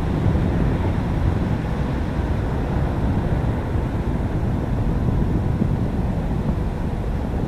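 Boeing 737-800's CFM56-7B turbofans at climb power after takeoff: a steady low jet rumble whose higher hiss slowly fades as the airliner climbs away.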